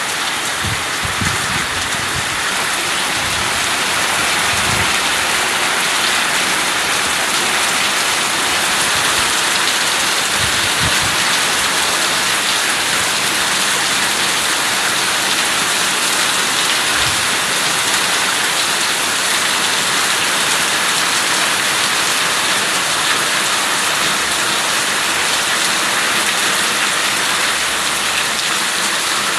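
Steady rain falling, an even, dense hiss that holds at one level throughout, with a few brief low thumps in the first half.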